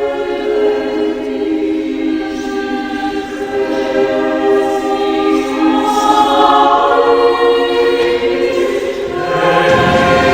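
Choral music: voices holding long, sustained chords that change every few seconds, with deeper tones joining near the end.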